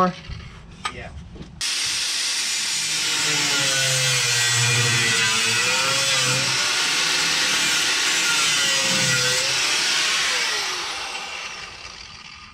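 Handheld power tool running steadily in a car body shop. It starts abruptly, holds for about nine seconds, then winds down near the end.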